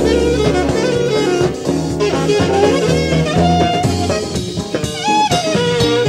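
Live jazz band playing an instrumental passage: a saxophone line over electric bass, electric guitar and a drum kit.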